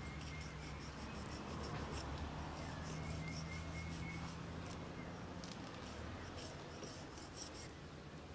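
Knife blade cutting and scraping cow hide and membrane away from the meat of a cow's head while the skin is pulled back: a quick run of short slicing strokes, over a low steady hum.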